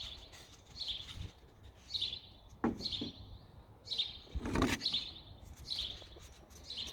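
A bird chirping over and over, one short falling chirp about every second. A sharp click comes a little before the middle, and a louder handling knock or rustle about a second and a half later.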